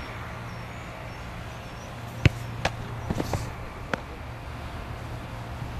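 A football kicked hard about two seconds in, followed over the next two seconds by a few sharper knocks of ball on the goalkeeper's gloves and of him diving onto the grass.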